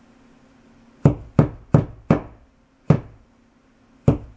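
Hammer tapping a small nail through an acoustic foam panel into the wall. Six sharp strikes start about a second in: four quick ones, about three a second, then two more with longer gaps between.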